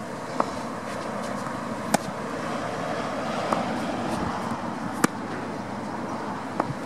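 Tennis balls struck by racquets in a baseline rally: five sharp pops about one and a half seconds apart, louder ones from the near player alternating with fainter ones from the far side of the court, over a steady outdoor background hiss.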